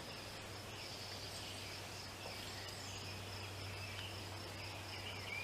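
Quiet steady background noise: a constant high-pitched drone over a low hum.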